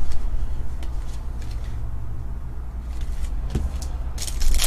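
Trading cards being handled and dealt onto stacks on a table, heard as scattered light clicks and rustles, then a louder sliding, riffling rustle near the end. A steady low hum runs underneath.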